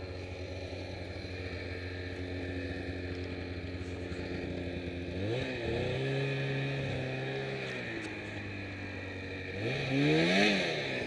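Bombardier Ski-Doo snowmobile engine idling, then revved twice: about five seconds in it climbs to a higher pitch, holds for about two seconds and drops back, and near the end a short, louder blip rises and falls.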